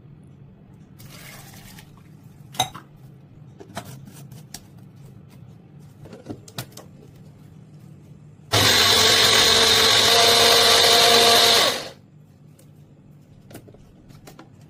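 A few light clicks and knocks as the plastic blender jar is handled, then the electric blender runs steadily for about three and a half seconds, blending milk, bourbon biscuits and ice cream into a milkshake, and cuts off.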